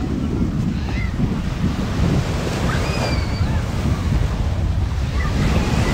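Surf washing on a sandy beach, with wind buffeting the microphone as a steady low rumble.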